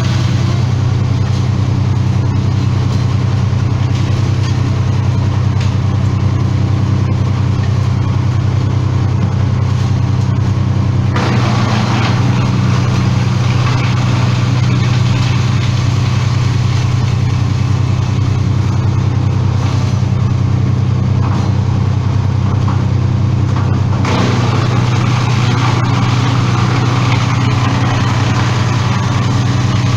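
An engine running steadily at a constant pitch, with a harsher, noisier layer joining it about a third of the way in and again near the end.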